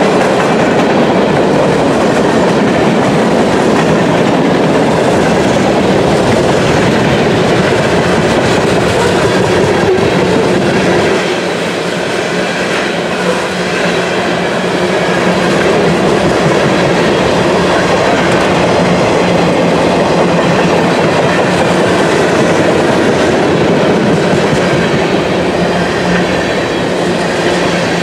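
Freight cars of a passing mixed freight train rolling by close to the track: steel wheels clattering over the rail joints in a steady, loud rumble, easing off briefly about eleven seconds in.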